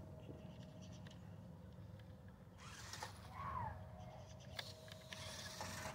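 Faint whir of a small 1/16-scale toy RC monster truck's electric motor and gears as it drives over dirt, with a short rising-and-falling high whine about halfway through.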